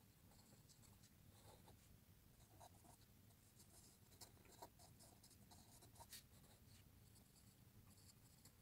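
HB graphite pencil scratching on drawing paper, faint, in many short, quick strokes.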